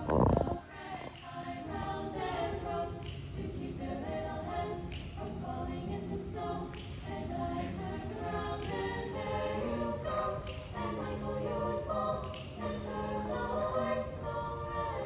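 Treble choir of young voices singing a cappella in several layered parts, with no instruments. A loud low thump comes right at the start.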